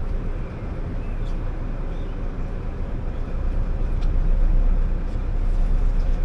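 Engine running steadily with a low rumble.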